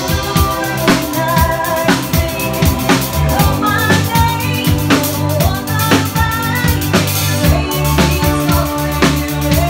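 Live rock band playing loud: a drum kit keeping a steady beat with kick and snare, under sustained bass notes and electric guitar.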